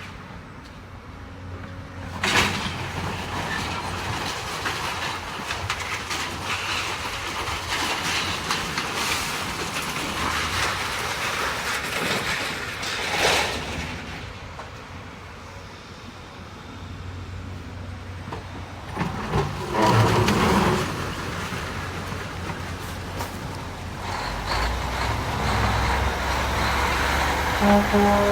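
A demolition excavator tearing down a building: its diesel engine running under a constant clatter of breaking and falling debris. There are sharp crashes about two seconds in and again around thirteen seconds, and the loudest burst of crashing comes about twenty seconds in.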